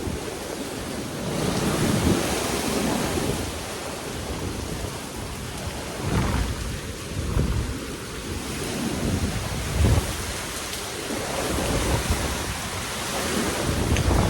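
Hurricane wind and heavy rain, with gusts buffeting the microphone in repeated low rumbling surges.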